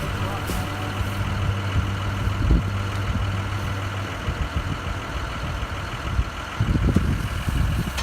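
A vehicle engine running steadily at a low, even hum that fades about halfway through, followed by irregular low rumbling near the end.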